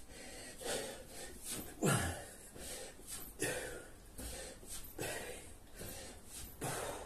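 A man breathing hard from exertion during burpees: heavy gasping breaths about every second, with one louder breath carrying a falling grunt about two seconds in.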